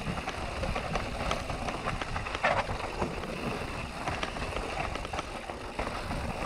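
Canyon Neuron full-suspension mountain bike rolling down a wet cobbled stone path: a steady low rumble from the tyres, with many small rattles and knocks as the wheels and frame go over the loose stones.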